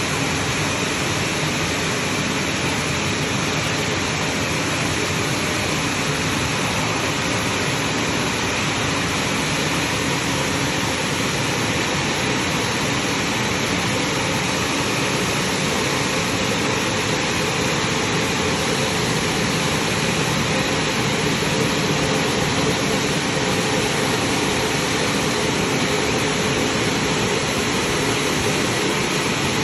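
Automatic car wash running: a steady, loud rushing noise of its water spray or drying blowers, with no breaks or single knocks.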